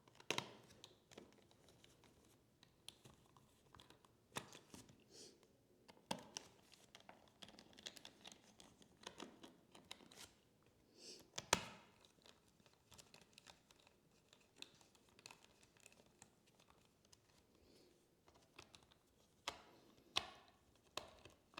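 Faint, scattered clicks and scrapes of a screwdriver driving screws back into a laptop's bottom panel, with the panel being handled, and one sharper click about eleven and a half seconds in.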